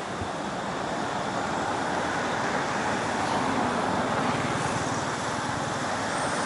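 Steady rushing outdoor background noise with no separate events, growing slightly louder over the first couple of seconds.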